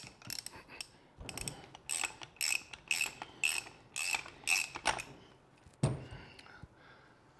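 A socket ratchet with a 30 mm socket clicks in short strokes, about two a second, as it unscrews the loosened top cap of a Marzocchi fork leg. The clicking stops about five seconds in and is followed by a single thump.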